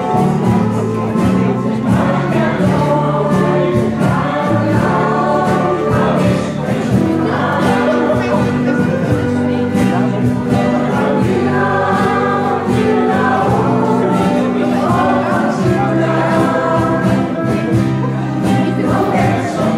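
Choir singing in unison with a live band of guitars, steel guitar, bass guitar and percussion keeping a steady beat.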